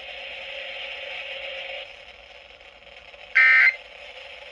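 Steady radio hiss that drops away after about two seconds. A little over three seconds in comes one short, loud burst of warbling Emergency Alert System data tones: the first of the end-of-message bursts that signal the alert is over.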